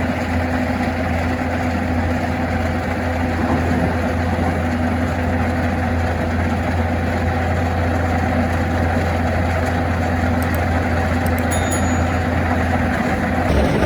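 Skid steer engine running steadily with a low hum. The sound changes abruptly near the end.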